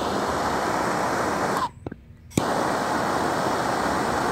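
Handheld gas torch lit with a sharp click and burning with a steady hiss. The flame cuts out after about a second and a half, and is relit with another click a moment later.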